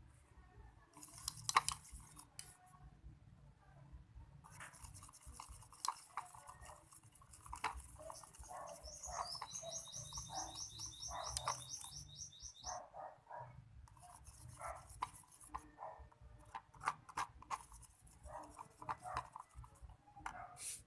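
Homemade slime mixture being stirred in a container: scratchy scraping and stirring strokes in spells, with a run of quick, evenly repeated strokes around the middle.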